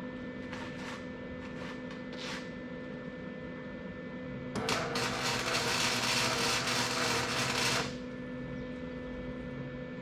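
A steady shop hum with a few brief hissing spurts. Then, about four and a half seconds in, a loud, dense noisy burst of a little over three seconds from a metalworking tool working the steel of the hookup, which cuts off sharply.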